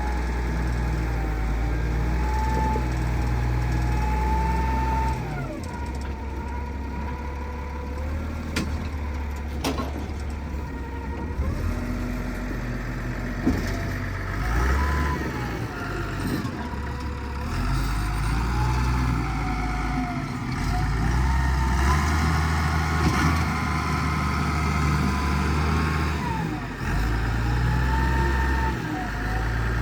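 John Deere 444 wheel loader working, its engine revving up and dropping back while a pitched whine rises and falls over it. Two sharp knocks come about a third of the way through.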